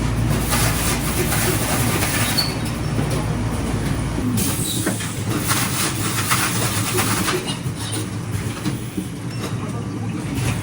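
Automatic ice-box taping machine for styrofoam boxes running, with several rasping passes of about a second each. A low hum underneath cuts off about four seconds in.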